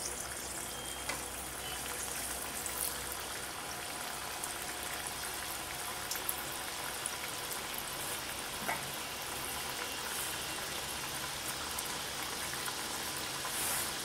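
Bedmi puris deep-frying in hot oil in a kadhai: steady sizzling and bubbling, with a few sharper pops.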